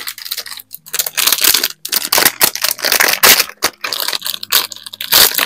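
Plastic candy-sushi wrapper crinkling and crackling as it is pulled open by hand, a dense run of loud sharp crackles.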